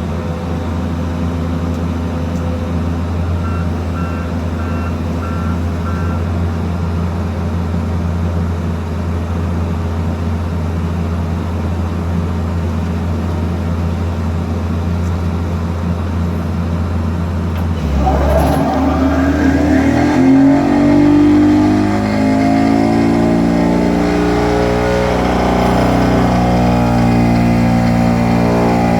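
Excavator engine running steadily, with a few short high beeps early on; about two-thirds of the way through, the pile driver attachment starts working sheet pile, and the sound gets louder with many wavering, shifting pitches.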